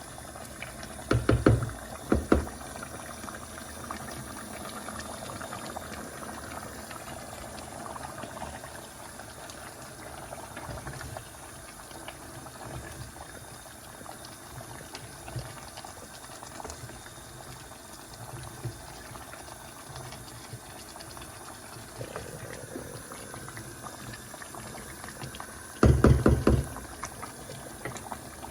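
Chicken curry bubbling in a pot over a high flame, with a steady simmering hiss as the tomato and chilli gravy reduces and thickens. There are a few loud knocks about a second in and again near the end.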